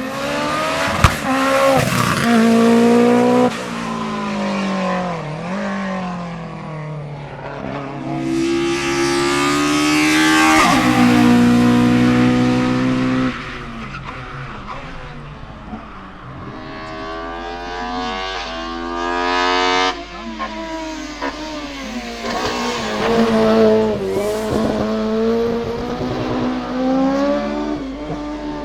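Race car engines revving hard through the gears, the pitch climbing and dropping back at each shift. The sound cuts abruptly a few times from one car's run to the next.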